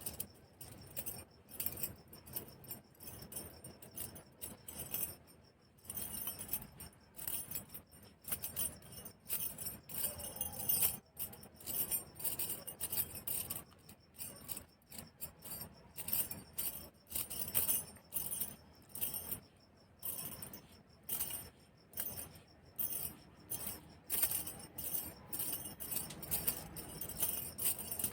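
Metal bangles clinking and jingling against each other, in quick, irregular bright clinks.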